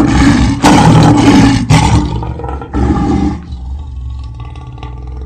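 Lion roaring sound effect: several loud roars in the first three and a half seconds, then a quieter, low growling rumble.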